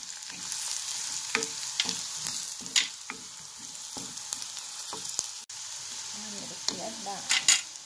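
Chopped onion, garlic, curry leaves and ground spices sizzling in hot oil as a spoon stirs them, with scattered scrapes and clicks of the spoon against the pot. Freshly added turmeric and chilli powder are being fried into the spice base.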